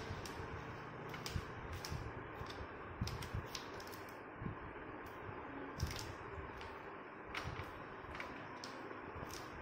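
Hands pressing and folding paste-coated colocasia leaves on a wooden board: scattered light taps and soft leafy rustles, irregular, over a steady low hiss.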